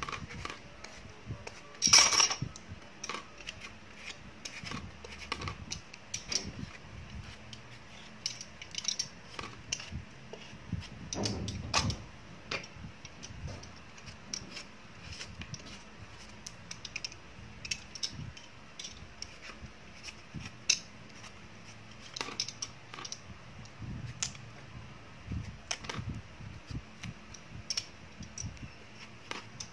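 Irregular small clicks, taps and scrapes of hand food preparation, with peelings and scraps dropping into a plastic colander. A louder sharp knock comes about two seconds in, and a longer clattering, rustling patch around the middle.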